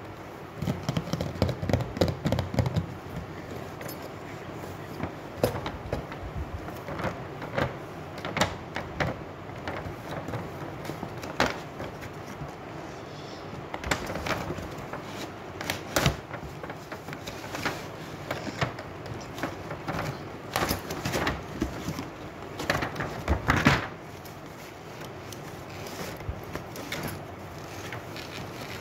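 Cardboard toy box being handled and opened by hand: irregular clicks, taps, scrapes and rustles of the cardboard and packaging. The handling is busy, with a louder scrape just before it dies down to quieter noises near the end.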